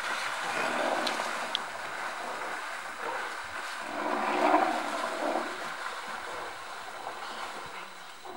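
Water and mud splashing and sloshing as rhinos charge through a shallow waterhole, loudest about four seconds in, then dying down.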